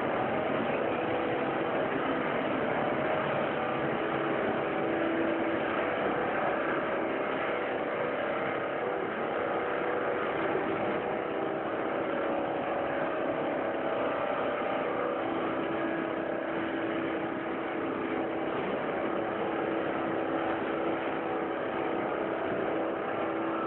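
PP/PE plastic film recycling line (crusher, washer and water-squeezing machine) running steadily: a continuous mechanical noise with a steady hum.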